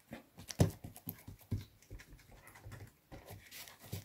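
Hands pinching and pressing soft, buttered yeast dough closed, making quiet, irregular sticky squishes and light taps.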